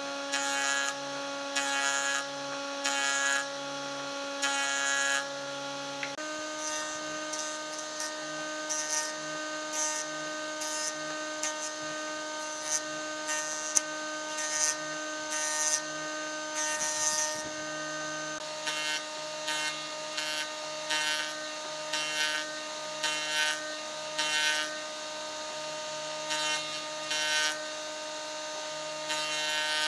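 Jointer running with a steady hum while a short log is pushed across its spinning cutterhead again and again, each pass a brief rasping cut into the wood, roughly one a second. The machine's hum steps up slightly in pitch about six seconds in.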